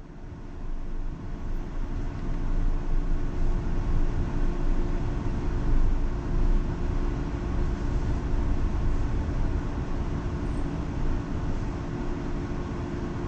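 Route bus heard from inside near the front: engine and road noise grow louder over the first few seconds as the bus gets under way, then run on steadily with a low hum.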